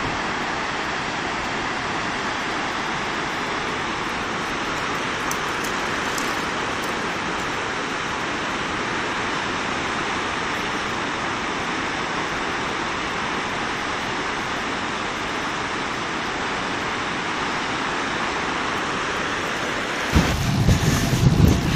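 Steady rushing of a mountain torrent and waterfall in the gorge below. Near the end it gives way to louder, gusty wind buffeting on the microphone.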